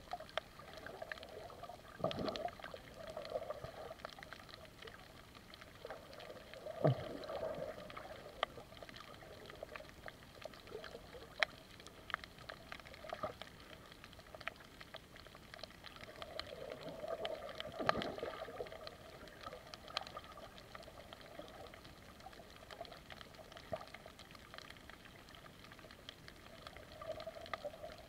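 Muffled underwater ambience heard through a camera's waterproof housing: a faint steady wash with scattered sharp clicks, and three stronger swooshes of moving water spread through.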